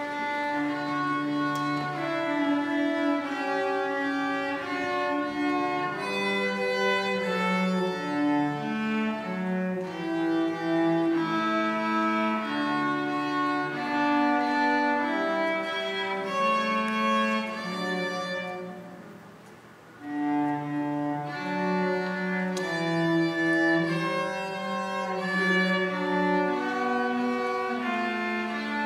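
Violin and cello playing a duet, both bowing held notes. The music fades to a brief pause about two-thirds of the way in, then both instruments come back in.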